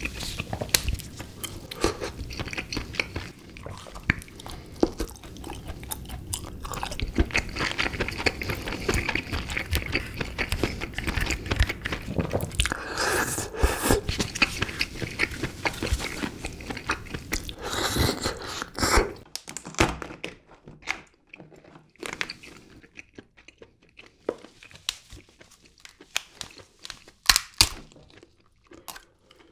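Eating a red king crab: chewing of crab meat mixed with crunching and cracking of shell as it is picked and broken apart. After about two-thirds the dense chewing gives way to sparser sharp cracks, with a few loud snaps near the end as the shell is pulled apart.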